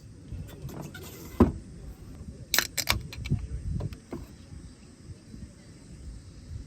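A few sharp clicks and knocks, the loudest a quick cluster about two and a half seconds in, over low rumbling noise and a faint steady insect drone.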